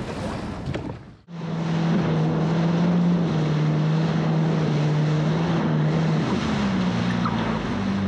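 Jet ski engine running underway at speed, a steady hum that rises a little in pitch near the end, over wind buffeting the microphone and water rushing past the hull. It cuts in abruptly about a second in, after a short dropout; before that there is only wind and sea noise.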